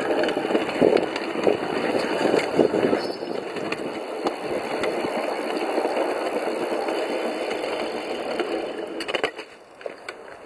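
Small steel wheels of a pedal-powered 5-inch gauge rail car rolling and rattling along the rails, with occasional sharp clicks. The rolling noise drops away about nine seconds in.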